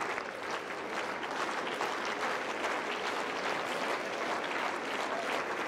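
Tennis crowd applauding a point: steady, dense clapping.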